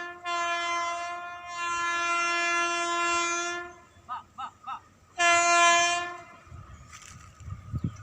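Horn of an Indian Railways WAP7 electric locomotive sounding a series of loud blasts: two in quick succession, a long one of about two seconds, and after a pause another of about a second. Three short chirps come in the pause, and a low rumble rises near the end.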